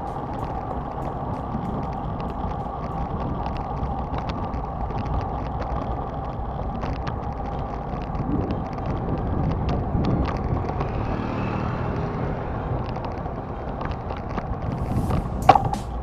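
City traffic and rolling noise heard from a moving bicycle, with scattered light ticks and one sharp click near the end.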